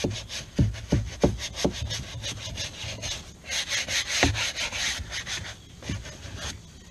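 Vinyl boat upholstery being scrubbed by hand, quick back-and-forth scraping strokes. A few dull knocks come in the first two seconds and one more about four seconds in.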